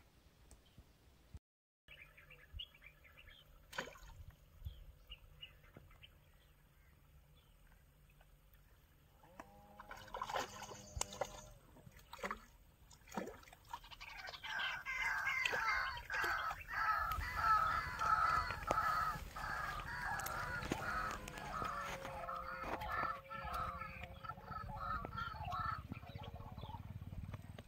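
Splashes as a small hooked fish thrashes at the water's surface on a pole line, and birds call over it in a dense run of rapid, repeated calls through the second half.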